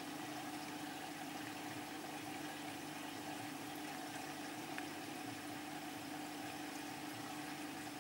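Aquarium pump humming steadily, with a bubbling water sound.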